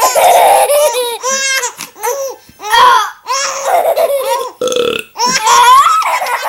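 A child burping, once right at the start and again about four and a half seconds in, with repeated high-pitched laughter in between.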